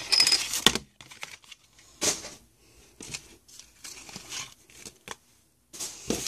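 Foil wrapper of a Pokémon card booster pack being torn open and crinkled in short rustling bursts, the densest in the first second.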